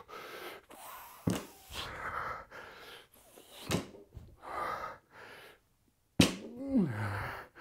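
Hard, gasping breaths between barbell deadlift reps, with a short knock about every two and a half seconds as the loaded bar touches down, three in all. After the last and loudest knock comes a strained grunt that falls in pitch.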